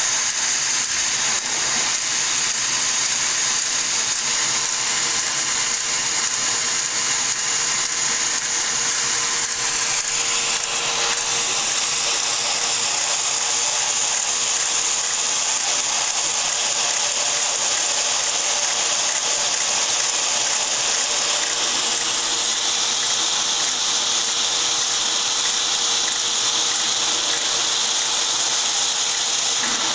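Lego model steam engine running: its plastic valve gear, connecting rod, crosshead and flywheel turn over continuously, giving a steady mechanical whir with a fine rattle of plastic parts and a constant hum.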